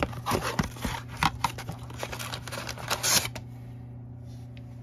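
A cardboard trading-card blaster box being handled and opened: a run of scraping, rustling clicks for about three seconds, loudest near the end of the run. A steady low hum sits underneath.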